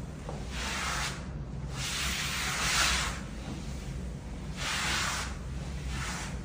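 Floor-washing machine running with a steady low hum, overlaid by four hissing, swishing passes, the longest and loudest in the middle.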